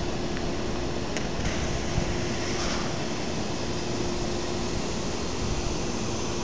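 Steady droning rumble from the sky with a constant low hum running through it, of unexplained origin.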